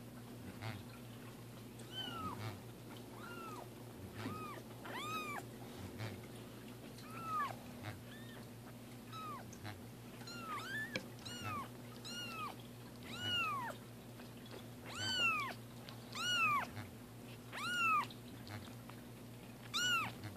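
Young kitten meowing over and over in short, high-pitched, rising-and-falling cries, roughly one a second, growing louder in the second half.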